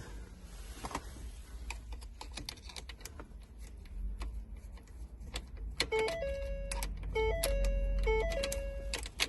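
Scattered light clicks over a low hum, then from about six seconds in a simple electronic tune of plain, stepping notes, like a chime or ringtone melody.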